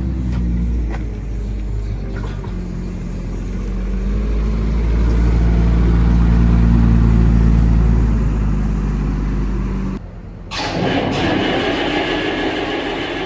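Tractor diesel engine running steadily, growing louder in the middle. It cuts off abruptly about ten seconds in, followed by a different, noisier engine sound.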